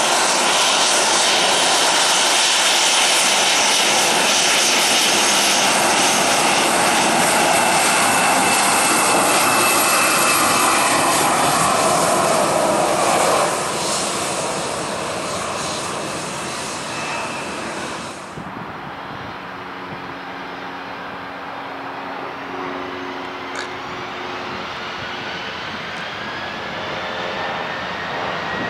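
Boeing 737-700 CFM56 jet engines: a loud, steady rushing jet noise that cuts off sharply after about eighteen seconds. Then a quieter engine hum with steady whining tones, and a whine rising in pitch near the end as the engines spool up.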